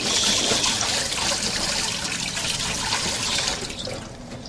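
Water running from a tap in a steady stream, easing off near the end.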